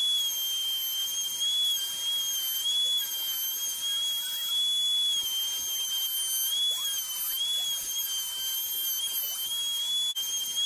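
Table-mounted router with a bearing-guided roundover bit running at speed, a steady high whine, as the edge of a wooden seat blank is fed around the bit. The whine dips briefly now and then as the bit takes wood.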